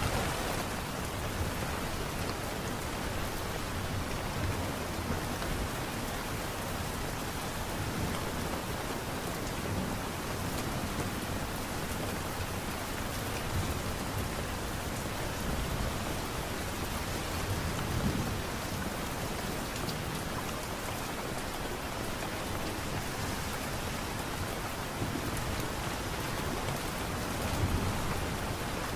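Light rain falling, a steady even patter. A couple of brief low rumbles swell up, one about two-thirds of the way through and one near the end.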